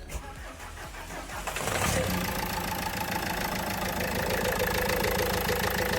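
Renault Duster's diesel engine on its first cold-morning start: a brief crank, catching about a second and a half to two seconds in, then settling into a steady idle. It is the check of whether a long-cranking starting fault is cured after a leaking injector washer was replaced.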